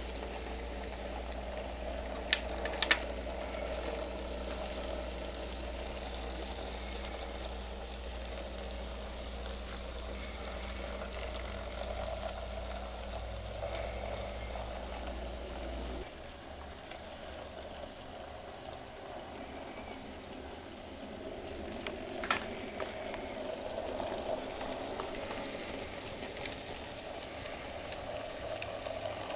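Tiny electric motors of battery-powered Nn3-scale brass model locomotives whirring steadily as the train runs round the track, with a few sharp clicks, two about two to three seconds in and one about three quarters through.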